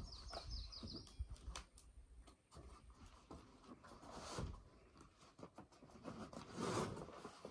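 Quiet handling of a parcel's packaging: faint scattered clicks and soft rustles. A quick run of short, high bird chirps sounds at the start.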